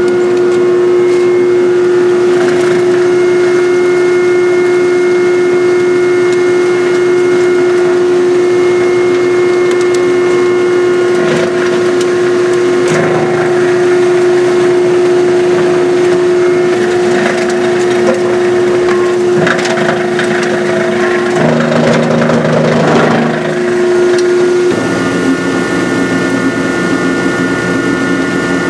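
Wire chopping line running loud and steady, its granulator, blower and shaker table giving a constant hum. From about 11 to 24 seconds in, insulated copper wire crunches and cracks as the granulator's knives chop it. Near the end the hum shifts to a different pitch.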